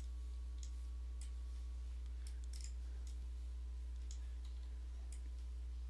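Faint, irregular computer mouse clicks, about a dozen, over a steady low electrical hum.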